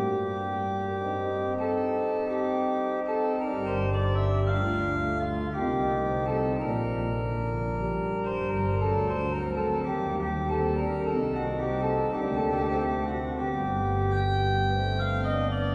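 Church pipe organ playing sustained chords from the manuals, with deep bass notes coming in about three and a half seconds in and moving beneath the harmony.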